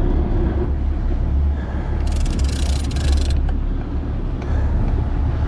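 Sport-fishing boat's engine running steadily with a low rumble, and a burst of hiss about two seconds in that lasts just over a second.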